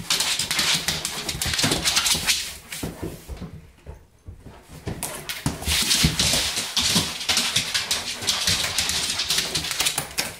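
Weimaraner running and scrambling about, its claws clicking rapidly on a hard floor. The noise drops away for about a second around four seconds in, then picks up again.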